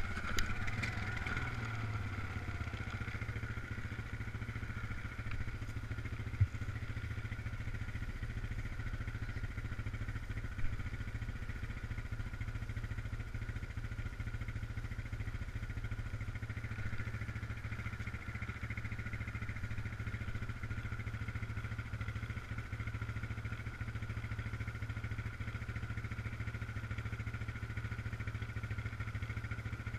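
ATV engine running steadily throughout, with a few sharp knocks: one just after the start, the loudest about six seconds in, and another about eleven seconds in.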